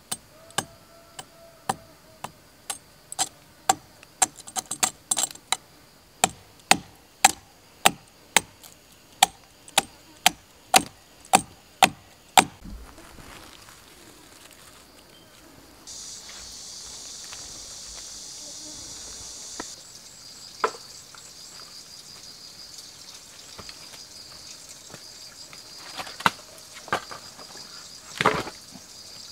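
A blade chopping into the wood of a charred pine trunk: about twenty sharp chops at roughly two a second, growing louder, that stop about twelve seconds in. After that, insects trill steadily, with a few wooden knocks near the end.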